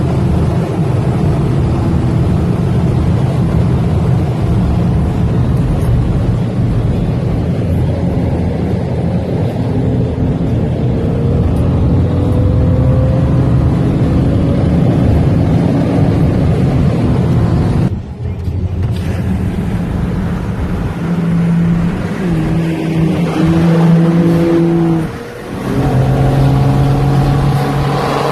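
BMW 335i turbocharged straight-six engine running under way, its pitch climbing slowly, with a brief dip in level about two-thirds of the way in and a steadier drone near the end.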